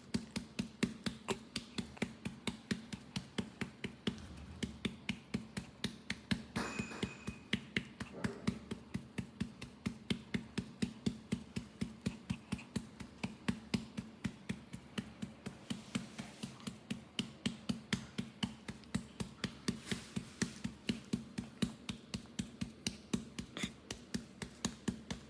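A hand patting a newborn's back to bring up a burp: an even rhythm of about three pats a second that stops at the end. A low steady hum runs underneath.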